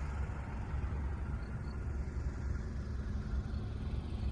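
Steady low rumble of a motor vehicle on the move.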